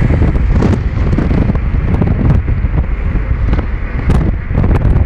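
Wind buffeting the microphone of a moving car, loud and gusting irregularly, over the car's road noise.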